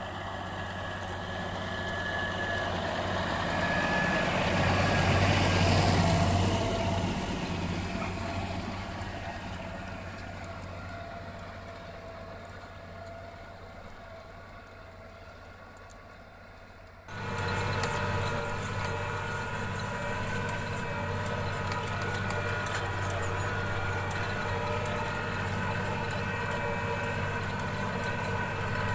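Claas Ares 836 tractor's diesel engine working under load while pulling a plough. It grows louder as the tractor comes close, loudest about five seconds in, then fades away. After a sudden cut about 17 seconds in, it runs steady and close.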